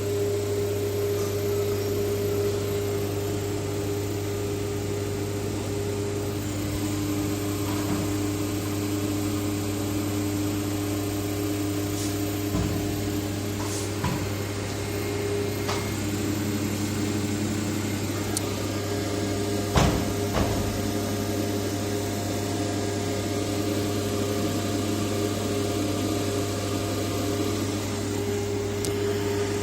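Steady hum of running HVAC plant machinery: a deep constant hum with steady whining tones above it. A few sharp clicks or knocks come through, the loudest about twenty seconds in.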